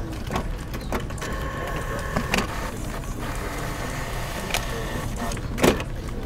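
Steady low background hum of a room, with a few sharp clicks and knocks scattered through it.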